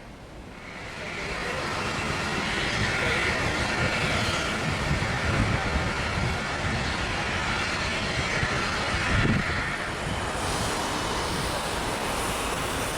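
Jet airliner engines, a steady rushing roar that swells in about a second in and then holds.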